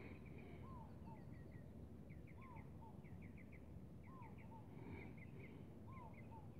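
Faint bird calls: a short arched whistle repeated about every second and a half to two seconds, with quick runs of three or four higher chirps in between, over a low steady background rumble.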